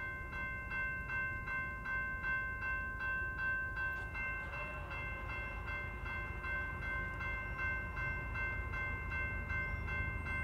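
Norfolk Southern freight locomotive's multi-chime air horn sounding one long unbroken blast as the train approaches, with a bell ringing about twice a second over it and a low rumble of the train beneath.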